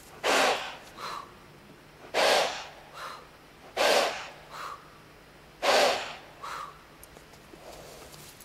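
A person and a Morgan stallion blowing back and forth at each other through the nose and mouth. There are four exchanges, each a loud, forceful blow followed about a second later by a softer one.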